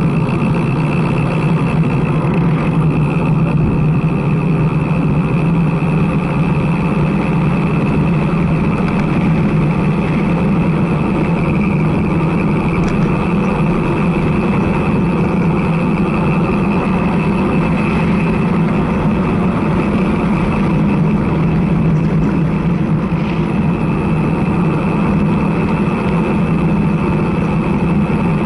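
Steady rush of wind buffeting a handlebar-mounted camera's microphone, mixed with tyre noise from a road bicycle rolling at speed on asphalt.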